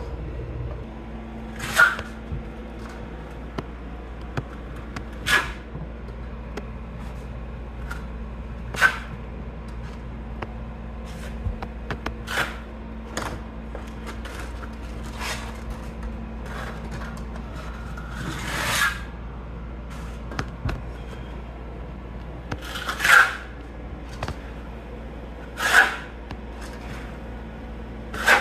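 Steel notched trowel scraping quick-set mortar across cement backer board as it is spread and combed into ridges, with a sharp scrape or knock every few seconds over a steady low hum.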